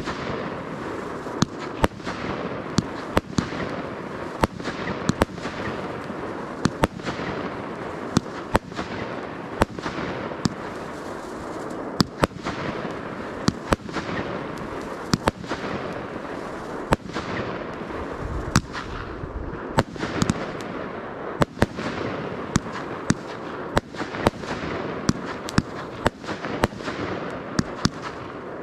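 Fireworks display: a dense run of sharp bangs, many in close pairs, about one to two a second, over a continuous rushing noise from the show.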